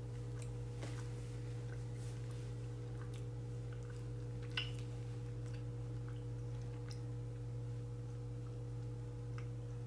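A steady low hum fills the room while a person chews a mouthful of smoked fish, with faint scattered mouth clicks and one sharper click about four and a half seconds in.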